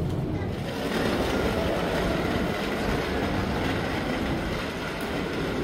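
Steady noise of a vehicle in motion, with strong low-end rumble and an even hiss up through the mid frequencies.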